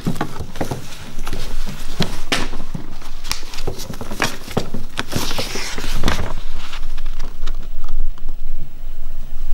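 Sheets of paper being handled and swapped, rustling, with irregular taps and clicks.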